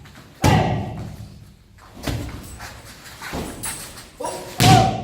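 Several sudden heavy thumps, each followed by a ringing echo as in a large hall, the loudest near the end.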